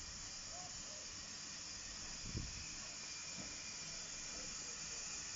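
Hudswell Clarke 0-6-0 saddle tank steam locomotive drifting slowly into the platform, a steady hiss of steam growing a little louder as it approaches. A single low thump comes a little over two seconds in.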